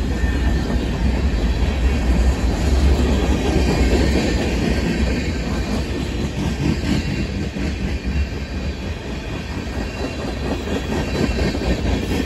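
Freight train of covered hopper and tank cars rolling past close by: a steady rumble of steel wheels on the rails, easing slightly in level about halfway through.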